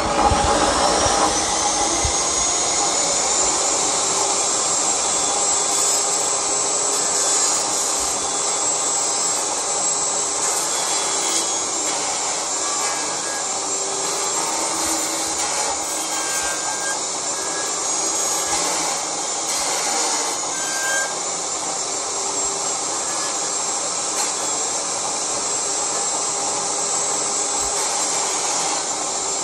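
Table saw running, its motor whine climbing over the first few seconds as the blade comes up to speed and then holding steady. A board is slid sideways across the spinning blade, whose teeth rasp the rough bottom of a chiselled notch smooth.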